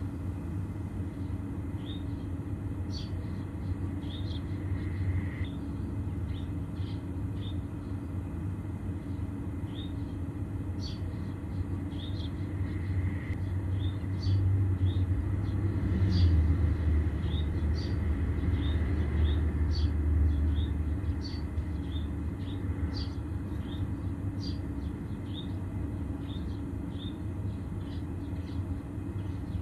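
Outdoor ambience: a steady low rumble that swells for several seconds around the middle, with short high chirps of small birds scattered throughout.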